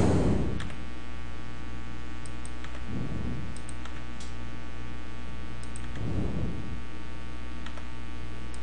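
Steady electrical mains hum with its overtones, with a few faint clicks scattered through it.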